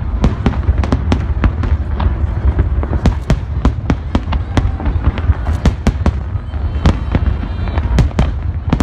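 Aerial fireworks barrage: shells bursting in rapid, overlapping bangs and crackles, several a second, over a steady low rumble.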